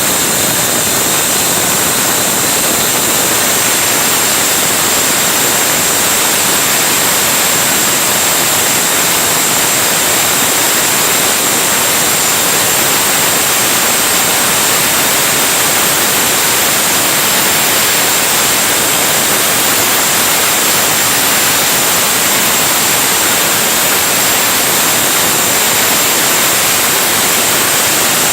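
800-watt circular saw with a 7-inch, 60-tooth carbide-tipped blade cutting through a 16 mm iron bar: a loud, steady hiss and whine of blade on metal that holds even throughout.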